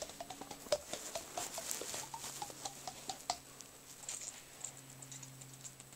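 Rapid, irregular light clicking and tapping, densest in the first half and sparser after, over a faint low steady hum.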